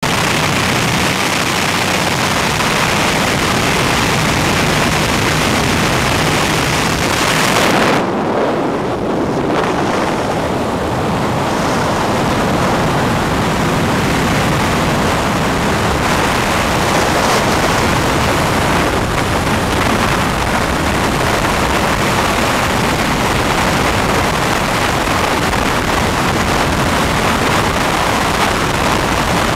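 Loud engine and wind noise at the open door of a small high-wing jump plane. About eight seconds in the sound changes, and from then on there is a steady rush of wind on the camera microphone in freefall.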